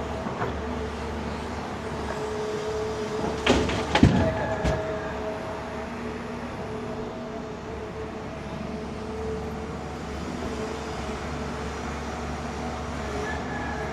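Excavator's diesel engine running steadily with a steady whine, with a few sharp knocks about four seconds in, the loudest sounds here.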